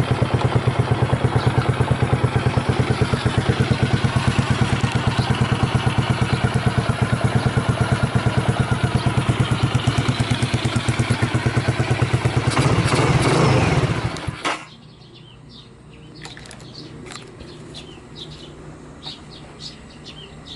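Honda GB250 Clubman's single-cylinder four-stroke engine, breathing through an aftermarket Peyton Place muffler, idling with an even, rapid beat. It rises briefly in a short rev and then is switched off about fourteen seconds in. It is running cleanly, with no abnormal noises.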